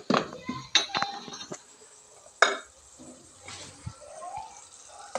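Wooden spoon knocking against a metal saucepan while stirring a thick stew: a few sharp separate clinks, the loudest about two and a half seconds in.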